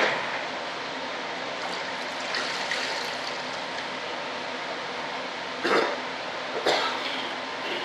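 A rag rubbing and scuffing over a smooth plastic tube used as the hatch mold: a sharp click at the start, a soft wiping patch a couple of seconds in, then two short, louder scuffs near the end, over a steady background hiss.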